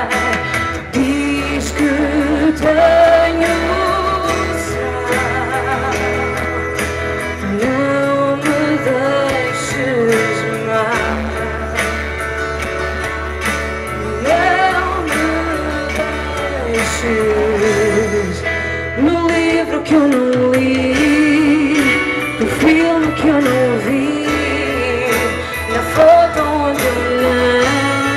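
A woman singing a song into a handheld microphone, over instrumental accompaniment with held bass notes that change every few seconds.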